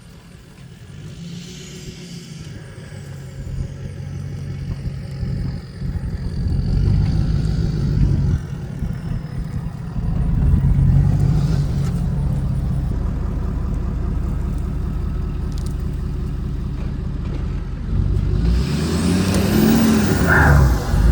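A motor vehicle's engine running with a low rumble that grows louder, its pitch rising and falling near the end as it revs.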